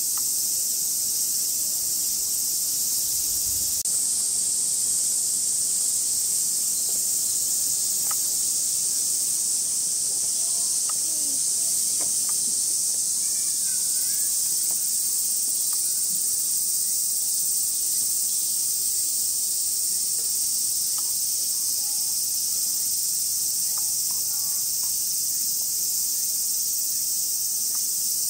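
Steady, high-pitched chorus of summer cicadas shrilling without a break, with a few faint ticks and rustles beneath it.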